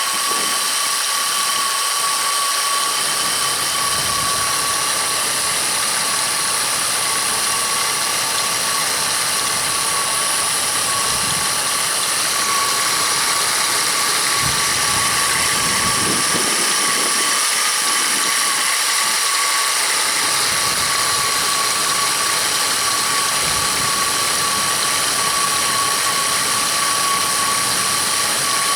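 Car engine's accessory belt drive running with a steady high squeal over a rough mechanical rubbing noise, the sign of a bad belt tensioner or belt pulley.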